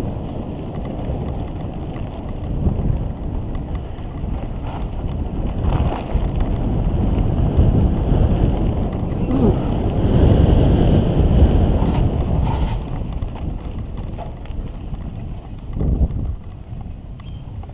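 Mountain bike descending a dirt trail at speed: wind buffeting the microphone, tyres rolling over dirt, and the bike clattering over bumps with scattered knocks. The rush swells loudest a little past the middle, then eases near the end.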